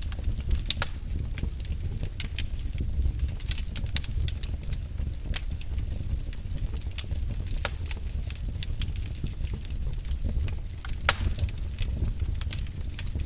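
Fire burning in a fireplace: a steady low rumble of flames with irregular sharp crackles and pops, the loudest pop about eleven seconds in.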